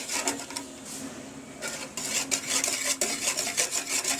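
Hand whisk beating milk and flan powder in a pot, its wires clicking rapidly against the pot to break up lumps. The whisking is lighter for about a second near the start, over a faint steady hum.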